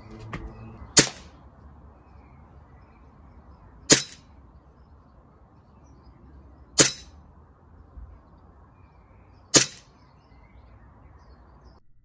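Umarex Glock 17 Gen 4 CO2 BB pistol firing four single shots, each a sharp crack, about three seconds apart.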